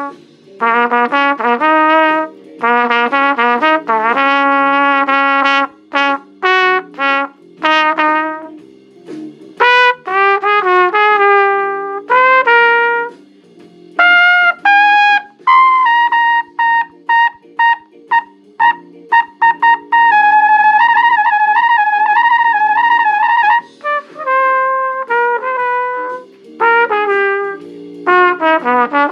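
Trumpet improvising blues lines over a 12-bar blues backing in B-flat: short phrases of quick notes broken by pauses, with one long held high note through the middle.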